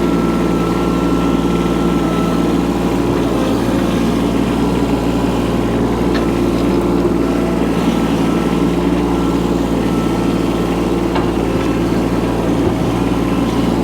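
Micro excavator's small engine running steadily, with a couple of faint knocks.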